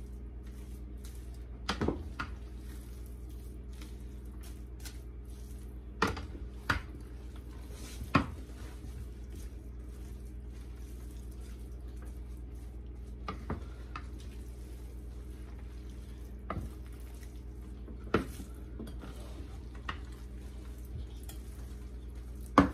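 A wooden spoon stirring a thick noodle, ham and cabbage mix in a large stainless-steel stockpot. The spoon knocks sharply against the pot about eight times at irregular intervals, over a steady low hum.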